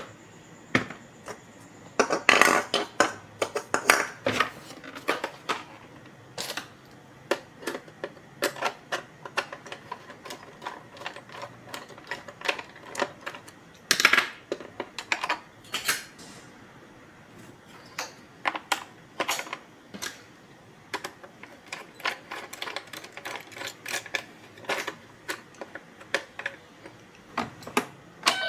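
Small hard plastic pieces clicking, tapping and clattering as they are handled, in an irregular run of sharp clicks and knocks. There is a dense flurry about two seconds in and a louder knock about halfway through.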